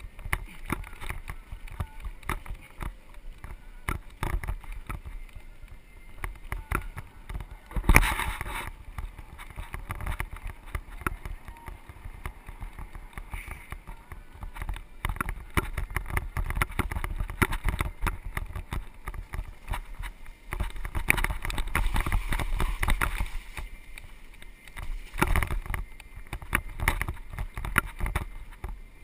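Mountain bike rattling over a rough dirt trail, heard from the handlebars: a constant irregular clatter of knocks and jolts from the frame, chain and tyres over a low rumble, with one louder jolt about eight seconds in.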